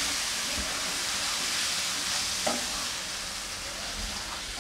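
Fish roe and onion masala sizzling in a non-stick frying pan while a wooden spatula stirs and turns it. A steady sizzle that eases a little in the second half.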